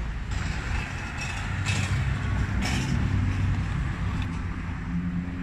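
Street traffic: a motor vehicle's engine running with a steady low hum over general street noise.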